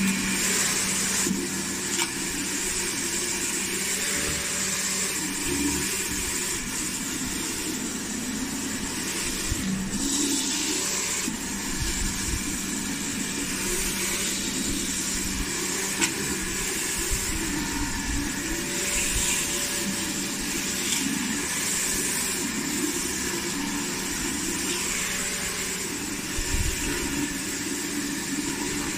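Pressure washer running steadily with a rotary patio-cleaner attachment, its spray hissing against concrete paving slabs over the steady hum of the machine's motor and pump.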